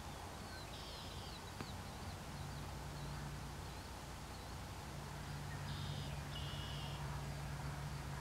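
Songbirds chirping and trilling faintly: a run of short high chirps, with buzzy trills about a second in and again around six seconds in, over a steady low hum.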